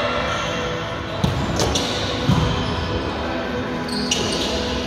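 A volleyball being hit during a rally on an indoor court: a few sharp ball hits echoing around the gym hall about a second in and again midway, then short sneaker squeaks near the end.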